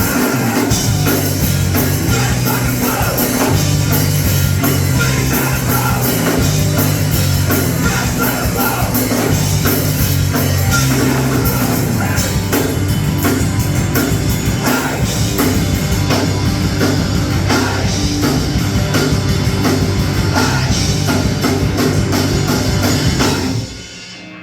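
Live rock band playing loud with a drum kit, with no lead vocal coming through because the singer's microphone plug has been pulled out. The band stops abruptly near the end.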